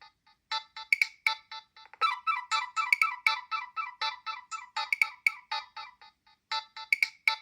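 Nokia 7250i playing one of its preloaded polyphonic ringtones: a quick melody of short, bright notes, several a second, with a brief lull just after the start.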